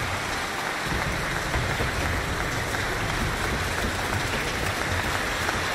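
Audience applauding a concert ending. The clapping swells during the first second, then holds as a dense, steady wash of claps.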